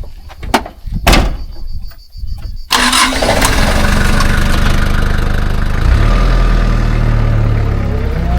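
A few sharp knocks, then about three seconds in a motor vehicle engine starts abruptly and runs steadily with a low hum.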